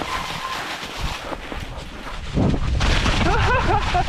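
Rumble and knocks of an electric mountain bike rolling over rocky trail, with wind buffeting the microphone, growing louder about two seconds in. Near the end comes a short wavering pitched sound.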